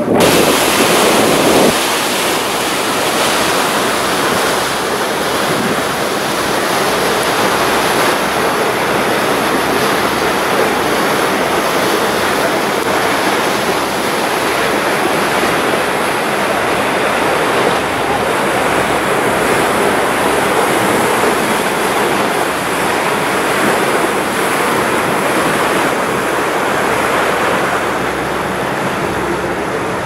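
Steady rush of wind and choppy sea water heard from a boat on open water, with gusts buffeting the microphone in irregular low rumbles.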